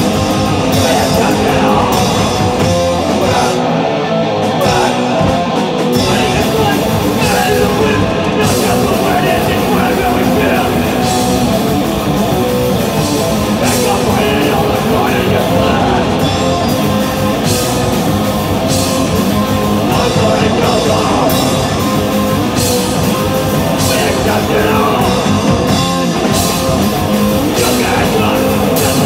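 Punk band playing live, loud and distorted: electric guitars, bass and pounding drums, with shouted vocals.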